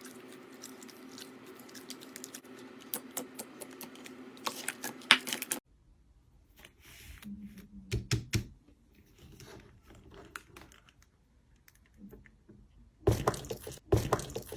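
Slime being handled by hand, making rapid small clicks and crackles over a steady low hum. About five seconds in the hum stops with a cut to another clip of quieter scattered pops, and louder clusters of clicks come near the end.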